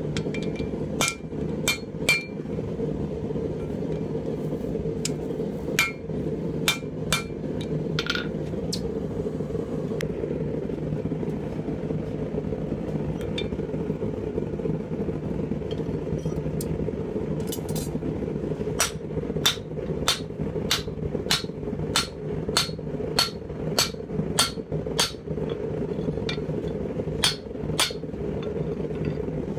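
Hammer blows on hot steel at a blacksmith's anvil while forging a pipe tomahawk head. A few ringing strikes come early on, then a steady run of blows, about two a second, drives a handled tool into the glowing steel over the last ten seconds. A steady low rumble runs underneath.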